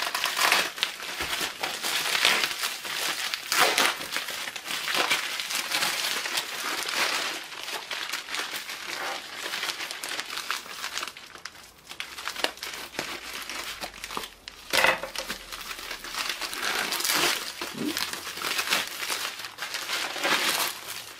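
Plastic packaging, a duct-taped bubble mailer and plastic wrap, crinkling and rustling as it is handled and pulled open by hand, with a few brief pauses.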